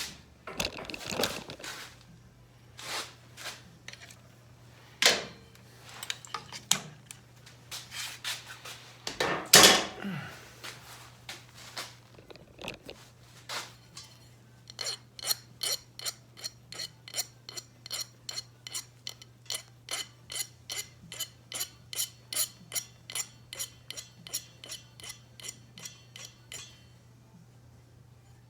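Small metal parts being handled with clinks and knocks, then a hand file rasping on metal in even strokes, about two a second, through the second half. A faint steady hum runs underneath.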